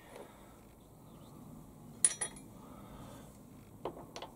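Steel workshop parts clinking together as they are handled: a sharp metallic clink about two seconds in with a quick second one, then a few lighter clicks near the end.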